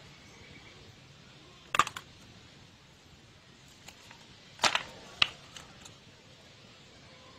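Rotating-head stapler snapping shut as it staples through the fold of a booklet: one sharp snap about two seconds in, then two more about half a second apart near the middle.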